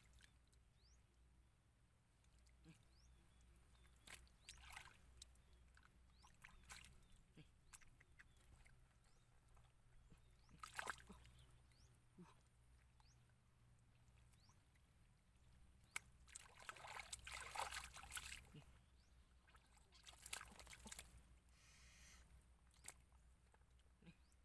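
Hands groping and sloshing through shallow muddy water, in a few short, irregular bursts of splashing, the longest about two-thirds of the way through.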